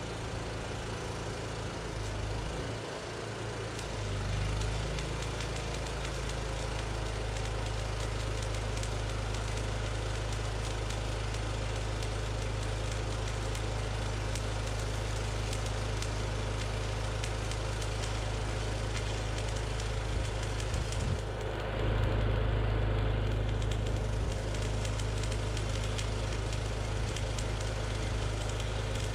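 Electric arc welding on a steel I-beam: a steady crackle from the arc over the steady drone of an engine running, which gets louder for a couple of seconds a little past twenty seconds in.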